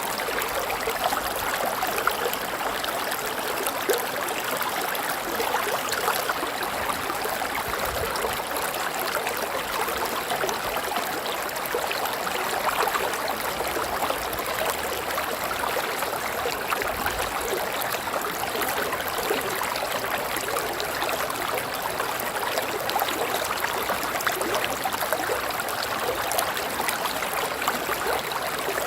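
River water flowing: a steady rushing babble, strongest in the mid and upper range, without pause or change.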